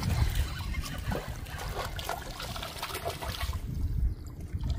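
Water trickling and splashing in irregular small bursts at the river's edge, over a steady low rumble, with a quieter stretch near the end.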